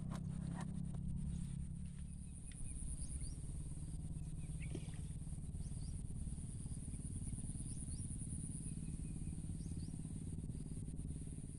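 Outdoor field ambience: a steady high-pitched insect drone and a few short, rising bird chirps over a low steady rumble, with a few faint knocks from handling the camera in the first second.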